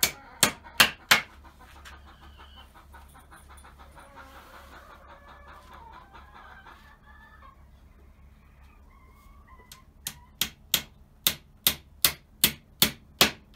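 Hammer blows driving nails into the wooden slats of a coop door frame, struck quickly at about three a second: a short run at the start, then a longer run from about ten seconds in.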